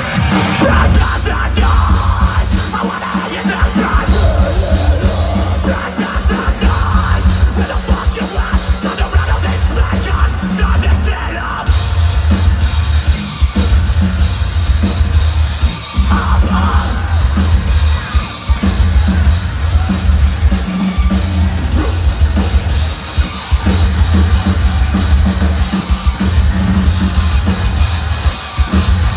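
Metalcore band playing live at full volume: heavily distorted, chugging guitars and bass in a stop-start rhythm over pounding drums with a driving kick drum.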